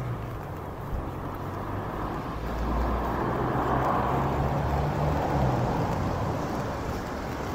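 A car driving past on a wet road: its tyre hiss swells to a peak about halfway through and then fades, over a steady low traffic rumble.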